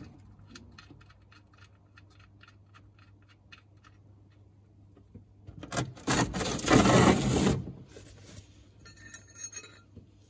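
Light metallic ticks as a sump plug is threaded in by hand, then a loud jangle and clatter of metal tools lasting about two seconds, then a few light clicks near the end.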